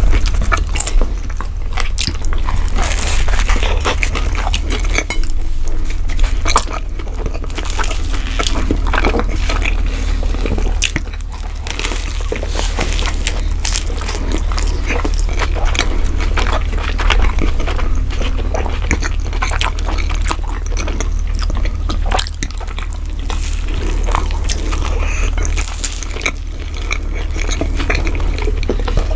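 Lovebirds eating: many small irregular crunches and clicks as they crack and chew their food, over a steady low hum.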